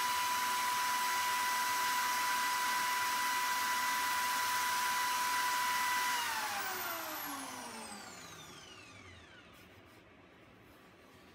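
A small electric motor running at a steady high whine, then switched off about six seconds in and spinning down, its pitch falling over a few seconds until it fades out.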